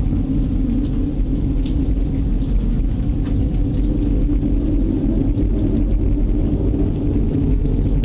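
A loud, steady, deep rumble with no breaks: the unexplained noise that the listeners take to be getting close, strong enough that the house and ground were shaking.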